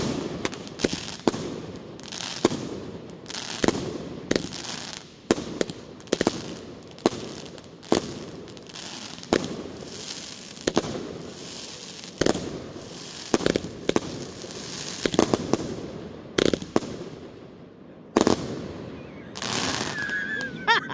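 Multi-shot aerial fireworks cake firing shot after shot, about one bang a second, each launch followed by a burst in the air, with crackling between the shots. The shots come further apart near the end.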